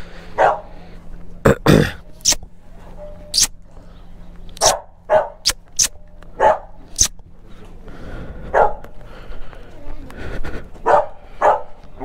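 A dog barking, a dozen or so short barks at irregular intervals with gaps of up to two seconds.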